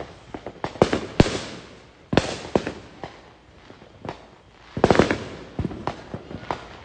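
Fireworks and firecrackers going off: irregular sharp bangs and smaller pops, with a rapid cluster of bangs about five seconds in.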